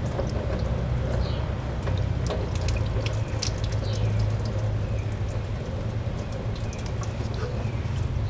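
Light clicks and taps of the water outlet housing being fitted back into place by hand, over a steady low hum and hiss.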